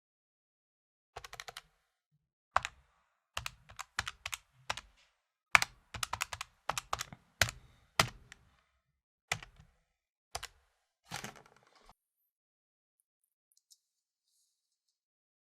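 Calculator keys being tapped in irregular runs of quick plastic clicks, which stop about twelve seconds in.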